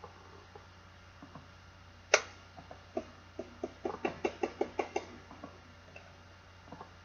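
Plastic Magic 8 Ball being handled, knocking: one sharp knock about two seconds in, then a quick run of knocks for about a second.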